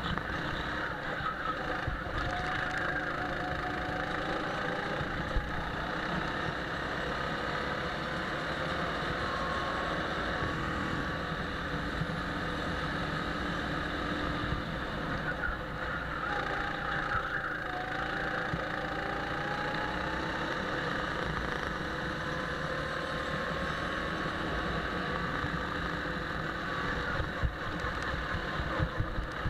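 Go-kart engine running at speed, heard on board, its pitch rising and falling slowly in long glides, over a constant rush of noise.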